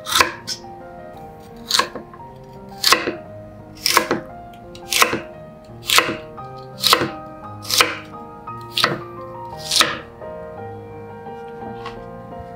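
Chef's knife slicing peeled raw lotus root into half-moons on a wooden cutting board: a crisp cut and knock on the board about once a second, ten or so slices, stopping about ten seconds in.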